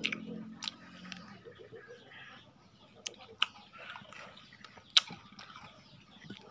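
Scattered sharp clicks and taps of eating utensils against tableware during a meal, the loudest about five seconds in, with faint chewing between them.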